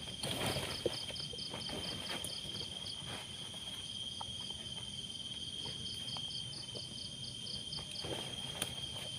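Night insects: one holds a continuous, even high trill while another calls in quick high pulses, about five a second, in two runs. Faint rustles and knocks sound beneath them.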